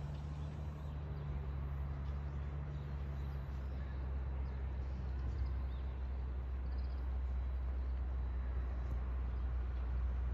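Steady low machine hum; one of its tones drops out about three and a half seconds in, and the lowest tone grows stronger.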